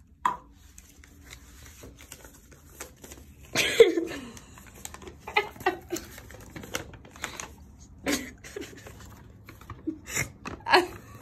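Paper crinkling and small clicks and taps as a folded paper package is opened by hand, with a burst of laughter about four seconds in and another near the end.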